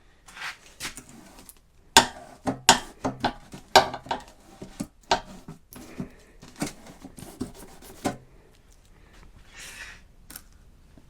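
Handling clatter: a quick, irregular run of sharp clicks, clinks and knocks as equipment is handled and set down, thinning out after about six seconds.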